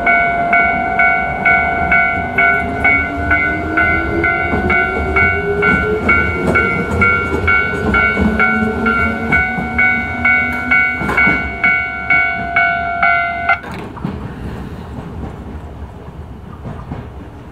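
Station pedestrian level-crossing alarm chiming about twice a second while an Echizen Railway MC6101 railcar pulls out, its motor whine rising in pitch as it gathers speed. The alarm cuts off suddenly about 13 seconds in, leaving the fading train.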